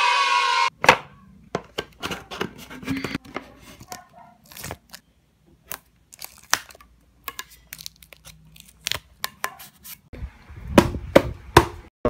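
Hard plastic parts of a children's chair being fitted together by hand: irregular clicks and knocks, with a denser stretch of rustling handling noise near the end. A short burst of music opens it.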